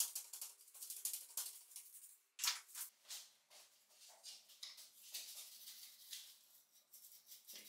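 Bristle brush scrubbing a rusted metal nailer body coated in wet, gritty black paste: a string of short, scratchy strokes at an uneven pace, with a brief pause about two and a half seconds in.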